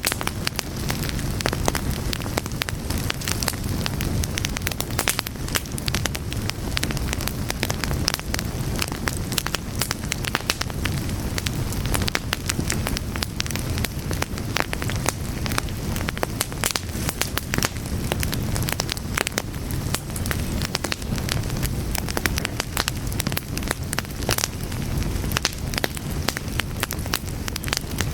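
Fire crackling, with dense irregular snaps and pops over a steady low rumble.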